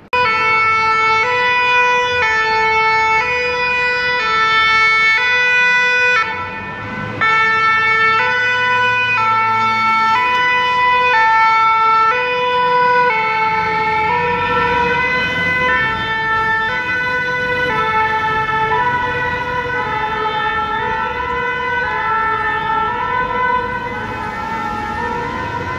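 French two-tone emergency vehicle siren sounding its two alternating notes steadily and loudly. It dips briefly about six seconds in, then carries on with its pitch shifting slightly and slowly fading toward the end.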